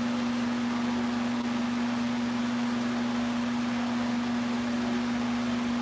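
Tower space heater's fan running, a steady low hum with an even hiss over it.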